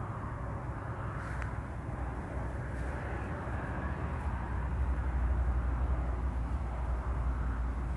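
Low, steady outdoor rumble that grows louder about halfway through.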